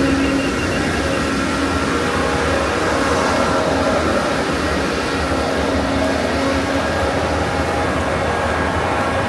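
Fog cannon truck running: its big mist-blowing fan and engine make a steady, extremely loud blast of air with humming tones in it.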